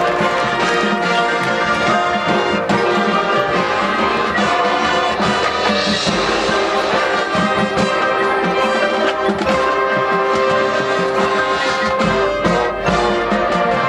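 Marching band playing at full volume: brass sections holding loud chords over a steady pulse in the low end.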